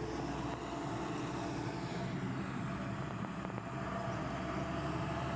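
Excavator engine running steadily with an even, unbroken drone.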